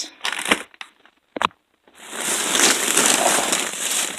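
Crinkling and rustling of plastic snack bags being handled: a few sharp crinkles, a brief pause with a single click, then a dense continuous crackling rustle from about two seconds in.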